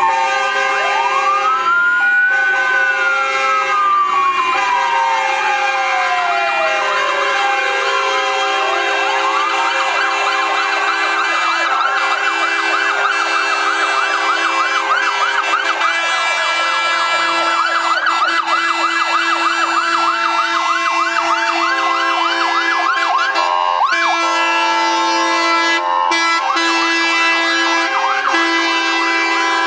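Fire engine sirens, among them the Scania P400 fire tender's, sounding in emergency mode. A slow wail rises and falls over several seconds. From about nine seconds in a fast yelp overlaps it, over a steady drone of tones. Near the end the yelp cuts out briefly, then starts again.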